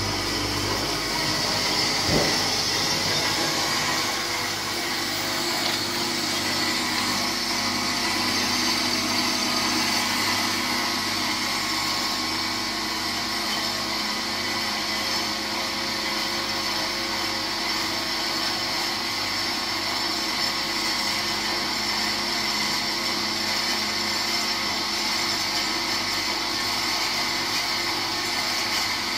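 PILOUS ARG 200 metal-cutting band saw running with no cut under way: a steady hum and high whine from its motor, drive and band blade. There is a brief knock about two seconds in.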